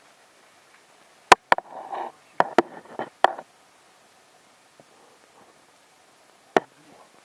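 Sharp knocks and clicks: five in quick succession over about two seconds with some rustling among them, then a single knock near the end.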